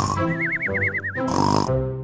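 Cartoon snoring sound effect: a wavering whistle, then a short snore about a second and a half in, repeating in a sleep-breathing cycle over light background music.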